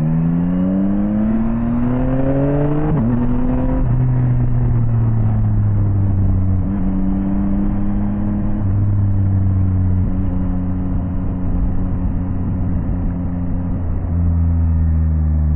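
Yamaha Tracer 9 GT's inline three-cylinder engine pulling under acceleration, its pitch rising for about three seconds. It drops sharply on an upshift, climbs briefly again, then settles into a steady cruise.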